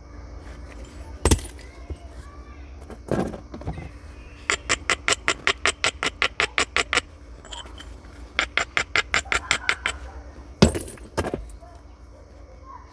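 Flintknapping a flint nodule with natural tools: three sharp percussion strikes, and between them two runs of quick, even strokes on the stone at about five a second, such as edge or platform preparation.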